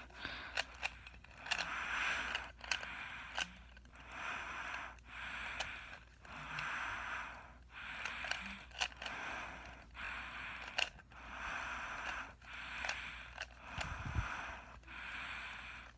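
A 3x3 speed cube being turned rapidly by hand during a solve: quick plastic clicks and scraping as the layers snap round, in uneven bursts.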